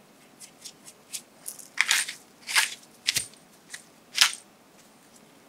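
Hand pepper mill grinding black pepper: a run of about ten short, crunchy grinding twists, irregularly spaced, the strongest ones in the second half.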